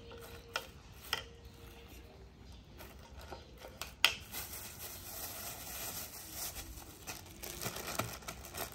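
Metal spoon clinking and scraping against a ceramic bowl in scattered light clicks, with one sharp clink about four seconds in. A plastic bag crinkles near the end.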